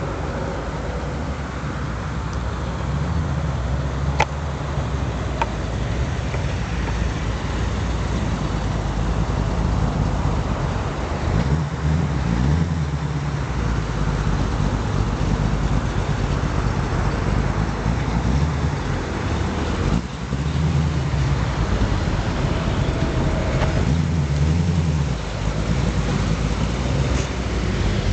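Muscle car engines idling in a steady low rumble, with an uneven lope that rises and falls.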